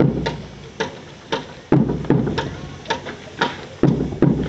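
Marching boots striking a concrete parade ground in drill time, a sharp even step about twice a second with a heavier thump about every two seconds.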